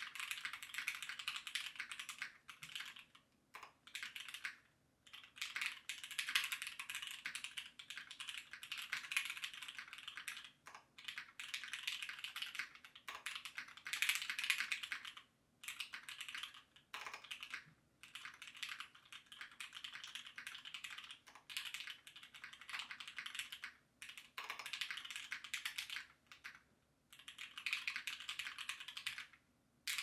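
Tofu 60 mechanical keyboard with lubed, filmed SP-Star Meteor Orange linear switches, PBT Cherry-profile keycaps, case foam and a tape mod, typed on fast: runs of rapid keystrokes broken by brief pauses.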